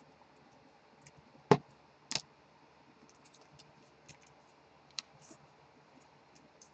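A few sharp clicks and taps from handling at a desk: one loud tap about a second and a half in, a quick double click just after it, another click near the five-second mark, and faint ticking between.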